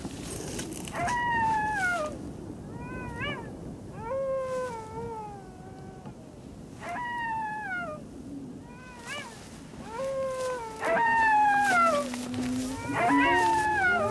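A chorus of wolf howls: repeated short cries that slide down in pitch, several overlapping, with a lower, longer-held howl coming in near the end.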